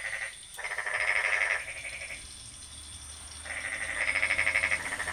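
A chorus of frogs croaking in rapid pulsed calls, in bouts of about a second, with the loudest bouts from about half a second to a second and a half in and again from about three and a half seconds in.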